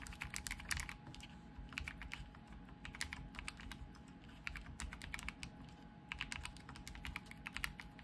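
Dark Project ALU87B aluminium-framed mechanical keyboard being typed on: quick runs of key clicks in bursts with short pauses between them.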